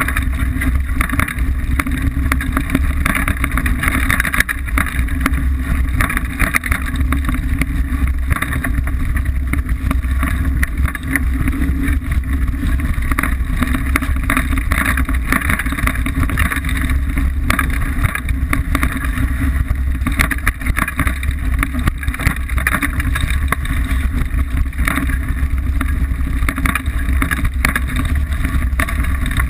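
Liteville 301 full-suspension mountain bike descending rough singletrack at speed: a steady low rumble of tyres on dirt and rock, with frequent clicks and knocks as the bike jolts over the ground.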